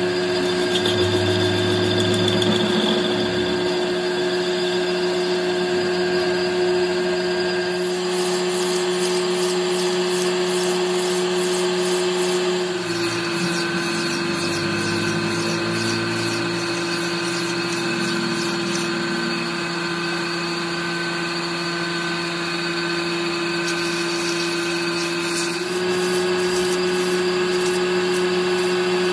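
Metal lathe running at a steady speed, spinning an engine crankshaft, with a constant motor hum. The sound shifts abruptly a few times without stopping.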